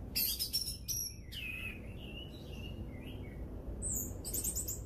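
Caged orange-headed thrush giving short, high chirps, with a few lower gliding whistled notes in the middle and a quick run of high chirps near the end.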